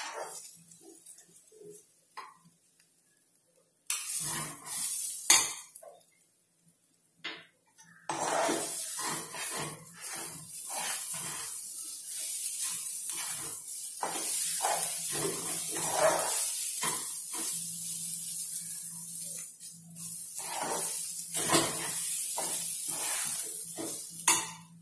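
Spatula stirring and scraping broken wheat as it fries in a nonstick wok: a short bout of strokes about four seconds in, then steady stirring from about eight seconds in until just before the end.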